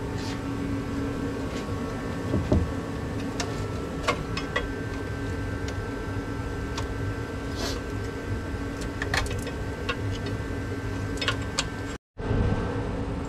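Plastic wiring connectors being unplugged from the hybrid battery ECU of a 2007 Toyota Prius: scattered small clicks and knocks over a steady hum, with a louder thump about two and a half seconds in.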